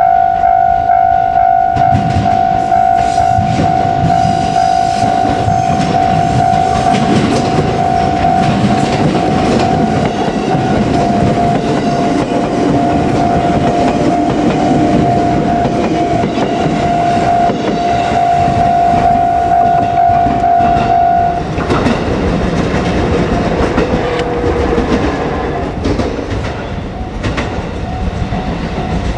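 Level-crossing warning bell ringing steadily as a JR Kyushu 787 series limited-express electric train runs over the crossing, its wheels clattering over the rail joints. The bell stops about three-quarters of the way through, and the train's rumble carries on after it.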